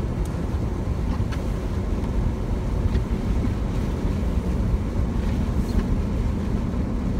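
Steady low driving rumble inside the cabin of a 2015 Jeep Wrangler Unlimited on 37-inch Toyo Open Country mud-terrain tyres, rolling along a snow-covered road, with a few faint ticks.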